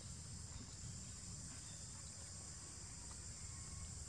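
Faint, steady high-pitched chorus of insects such as crickets or cicadas, with a low rumble underneath.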